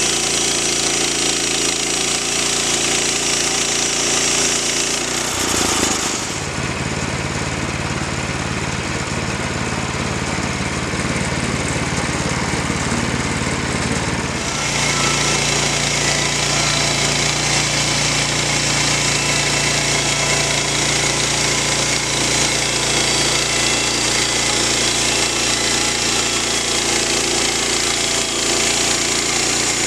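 Woodland Mills portable bandsaw sawmill running, its engine driving the band blade through a pine log. The sound turns deeper and heavier from about six to fourteen seconds in, then returns to the first steady sound.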